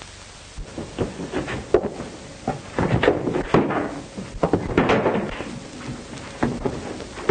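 Fistfight sound effects: repeated irregular punches and thuds with scuffling, growing busier and louder from about a second in.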